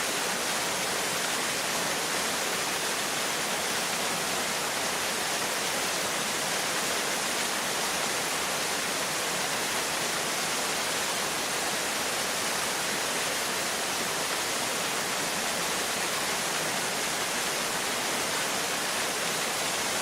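A small waterfall, about 6 m high, pouring steadily: an even, unbroken rush of falling water.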